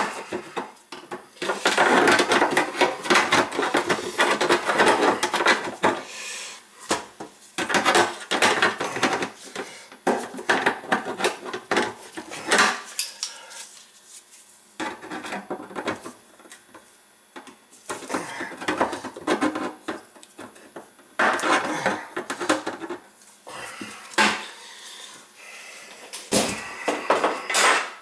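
Metal hand tools clanking, clicking and scraping against a stainless steel sink deck as an adjustable wrench works the old faucet's mounting hardware loose. The clatter comes in bursts of a few seconds with short pauses between.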